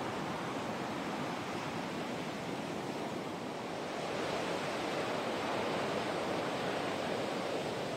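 Shore-break surf: waves crashing and washing up the sand in a steady rushing roar that grows a little louder about halfway through.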